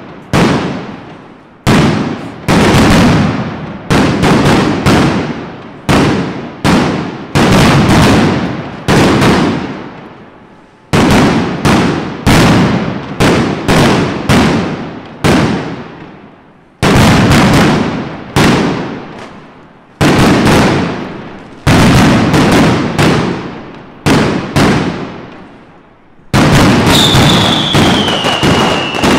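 Mascletà firecrackers going off in a rapid, uneven volley of very loud bangs, some in quick clusters and others singly, each trailing off before the next. Near the end a whistling firework gives a falling whistle over the bangs.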